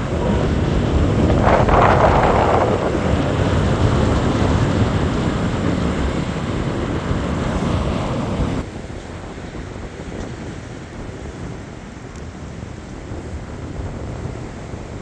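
Wind buffeting the microphone over the steady wash of strong surf. A little over halfway through the sound drops suddenly to a quieter, even hiss of wind and waves.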